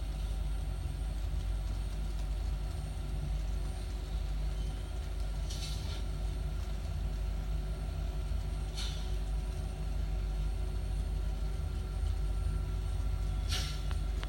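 N scale model train running on the layout track: a steady low rumble with a motor hum. Three brief hissing sounds come about 6, 9 and 13.5 seconds in.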